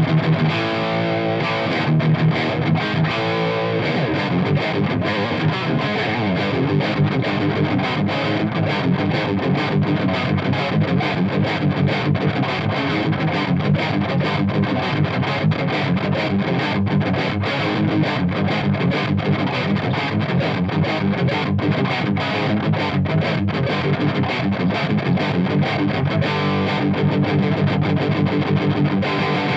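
Les Paul electric guitar played through an overdriven Marshall tube amp, giving a heavily distorted rock jam. Held, ringing chords near the start and again near the end, with faster riffing in between.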